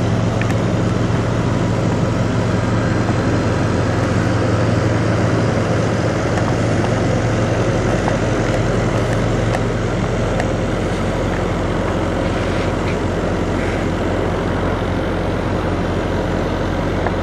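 Diesel engines of parked semi trucks idling: a steady low hum.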